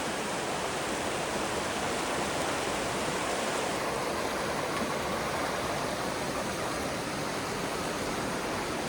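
Creek rapids rushing: a steady, even roar of water, its hiss easing a little about four seconds in.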